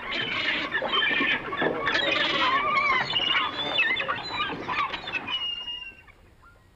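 A large flock of marsh birds calling together as they fly up, many overlapping calls at once, dying away near the end.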